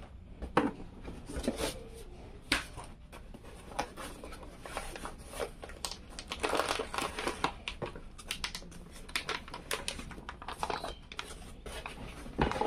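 Unboxing handling noise: a graphics card in a plastic bag crinkling and rustling as hands work it in its foam packaging tray and lift it out, with scattered sharp clicks and knocks against the box. The crinkling is densest about halfway through.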